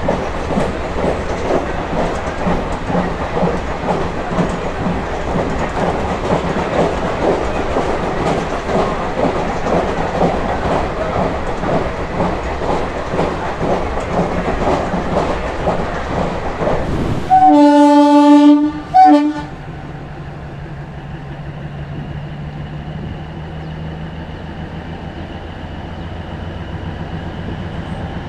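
A train passing close, its wheels clattering rhythmically over the rail joints for about seventeen seconds. Then a locomotive horn sounds loudly, one long blast and a short second one. After that a quieter, steady low hum is left.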